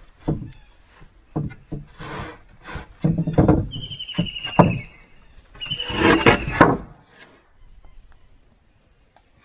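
Irregular knocks and heavy thuds of work on wooden posts, loudest in two stretches in the middle, with a high, slightly falling trilled call twice. The work stops about two-thirds of the way through.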